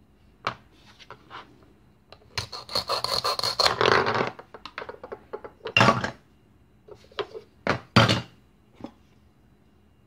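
Velcro joint of a plastic toy carrot ripping apart, a dense rasp of about two seconds, followed by a few sharp knocks of plastic pieces set down on a plastic cutting board.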